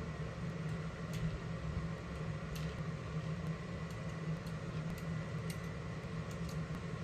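A steady low mechanical hum, with faint light clicks scattered through it as a metal spatula lifts baked oat biscuits and sets them down on a wire cooling rack.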